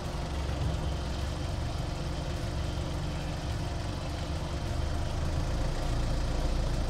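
Land Rover Series III 4x4's engine running at low revs while crawling off-road, growing a little louder toward the end.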